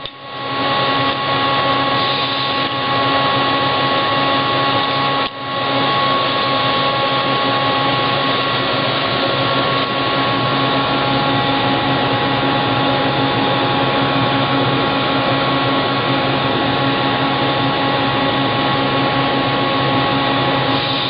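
Steady drone of running shop machinery, a motor-driven whirr with several steady hum tones, dipping briefly near the start and about five seconds in.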